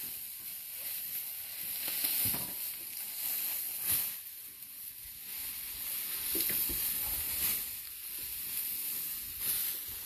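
Cattle tearing and chewing cut grass close by: a crackly rustling over a steady high hiss.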